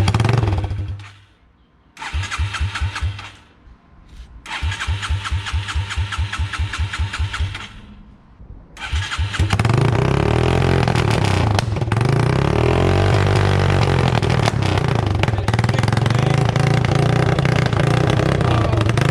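Yamaha TT-R225's single-cylinder four-stroke engine being cranked over in two tries of even, regular strokes, then catching about nine seconds in and running really loud and somewhat unevenly through an open exhaust with no muffler.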